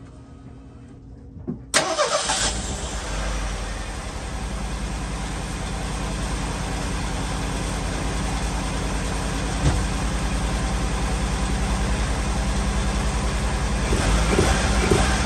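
Merkur XR4Ti's turbocharged 2.3-litre four-cylinder starting about two seconds in and catching quickly, then idling with a steady pulse, getting louder near the end as it is revved. Freshly tuned with new cap, rotor, wires and plugs, it runs on all four cylinders but with a slight miss, which the owner blames on the injectors.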